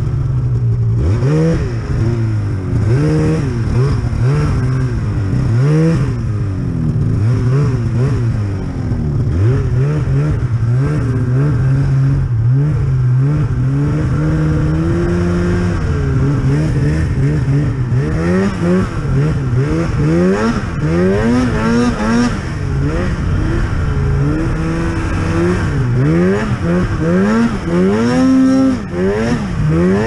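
Polaris Axys snowmobile's two-stroke engine revving up and down over and over as the throttle is worked through deep powder, its pitch climbing and dropping every second or two.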